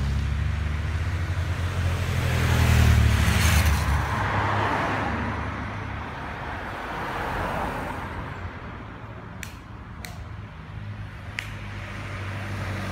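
Race-escort motorcycles and a car driving past on the road: motorcycle engines hum and swell as they go by in the first few seconds, a car passes with tyre noise about five seconds in, and another motorcycle's engine grows louder near the end. A few sharp clicks near the ten-second mark.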